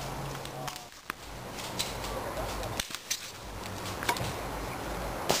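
Airsoft pistols firing: about half a dozen sharp single pops spread over several seconds, the loudest near the end.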